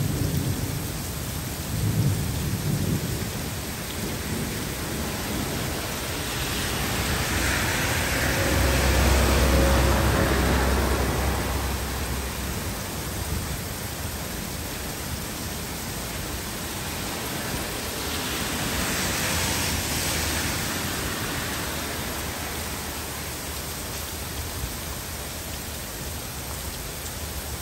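Heavy rain falling steadily on trees and pavement, with rolls of thunder. The loudest is a long low rumble that builds and peaks about ten seconds in; a weaker roll comes around twenty seconds.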